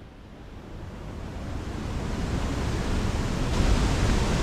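Steady rush of the Ellis River at the top of Glen Ellis Falls, swollen with snowmelt and rain, fading in and growing louder over the first few seconds.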